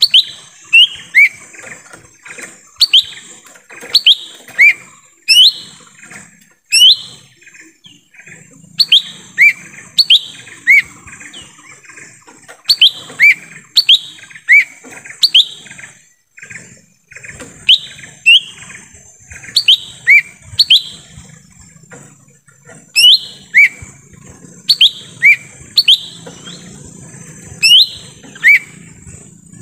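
Lesser green leafbird (cucak ijo mini) calling loudly in a rapid series of short, sharp whistled notes. Each note drops in pitch, and they often come in pairs, a high note followed by a lower one. The calls come in bursts with brief pauses, over a steady high-pitched hiss.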